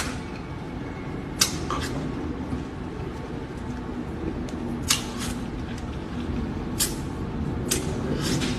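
Wet mouth sounds of someone eating a juicy mango: short, sharp slurps and lip smacks every second or two over a low, steady background.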